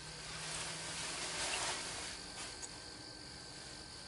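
Steady chorus of crickets and other insects trilling, with a soft rushing swell that rises about half a second in and dies away by about two seconds, and a small click near the end.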